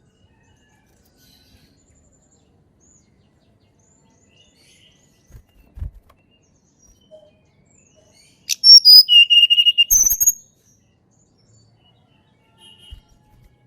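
A tledekan gunung (Sunda robin) calls once in a loud burst of about two seconds, starting some eight seconds in. It opens with a quick high sweep and rapid high notes, then holds a steady whistle. A fainter short call follows near the end.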